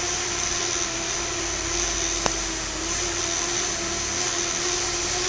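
Two small fischertechnik electric motors spinning propellers on a model monorail car, fed by pulse-width modulation through the rails: a steady whirring hum. A single brief click a little over two seconds in.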